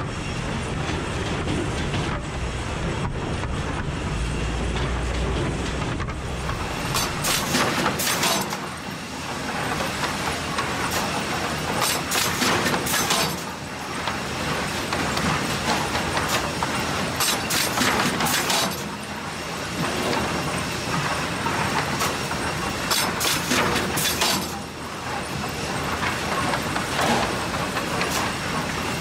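Sawmill lumber-line machinery running with a steady rattle, and a loud clatter of wooden boards about every five seconds as the board stacker handles the sawn pine.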